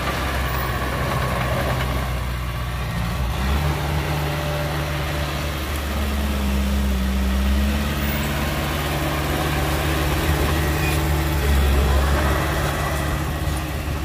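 Heavy diesel engine of earthmoving machinery running steadily, its low note shifting in pitch a few times.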